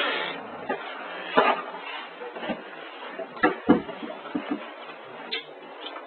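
Irregular clicks and knocks, about eight in six seconds, from a hand working the switches and door of a household circuit-breaker panel.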